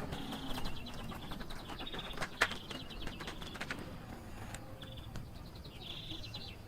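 Small birds chirping several times in short high phrases, over light clicks and rustling.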